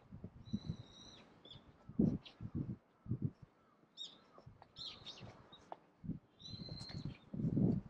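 Birds chirping and calling, a string of short high calls several times over. Irregular low thuds sound underneath, loudest near the end.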